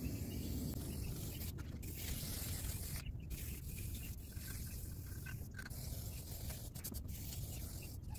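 Aerosol spray paint can hissing in long bursts, broken by a few brief pauses as the nozzle is released.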